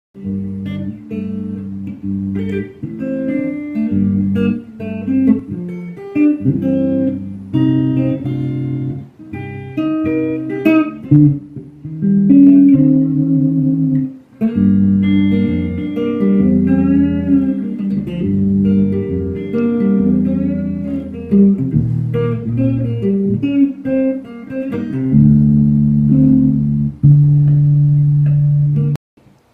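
A newly built semi-hollow electric guitar, the 'Gazelle', played unaccompanied: a melodic passage of single notes and chords with a few string bends. It ends on a long held low note that stops just before the end.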